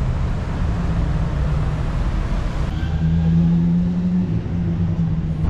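Street traffic: a motor vehicle's engine running close by, with a steady low hum that strengthens about three seconds in.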